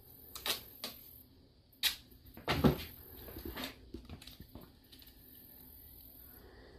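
Handling noises from a plastic air intake box and a roll of tape: a handful of sharp clicks and knocks in the first few seconds, the loudest about two and a half seconds in.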